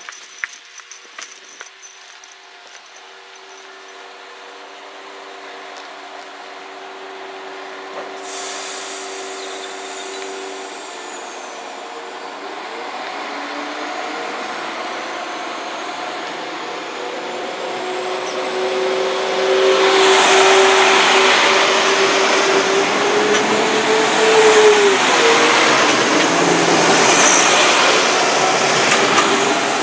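Class 172 Turbostar diesel multiple unit standing at the platform with its engines running steadily, then pulling away. Its engine note rises and grows much louder as it accelerates past, with a rising tone that drops sharply about three-quarters of the way through.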